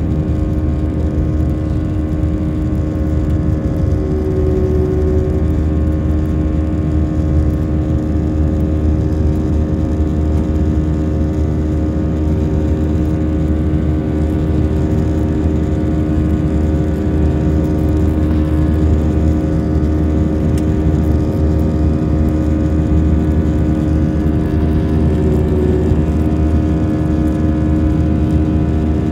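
Airliner's turbofan jet engines running at climb power, heard inside the cabin during the climb just after takeoff: a loud, steady low rumble with a steady hum over it.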